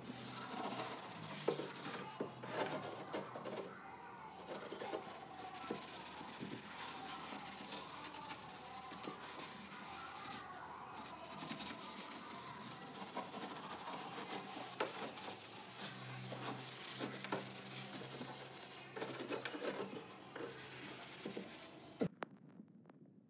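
Sponge scrubbing the soapy steel front panel of a water purifier: continuous rubbing and scraping with scattered small knocks, stopping abruptly near the end.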